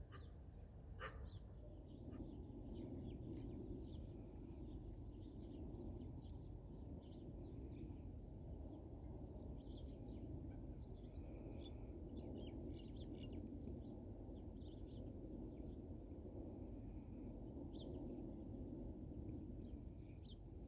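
Small birds chirping in short, scattered calls over a steady low background hum, with one sharper call about a second in.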